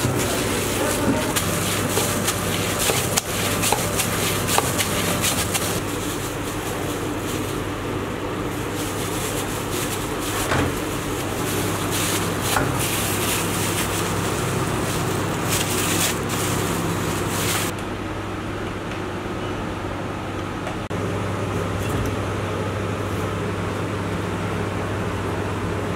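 Hands in thin plastic gloves kneading dough in a steel bowl: crinkling plastic and rubbing, with small knocks against the bowl, over a steady low machine hum. The crinkling stops about two-thirds of the way in, leaving mostly the hum.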